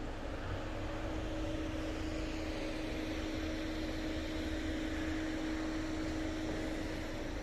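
A steady mechanical hum: one constant low tone over an even hiss.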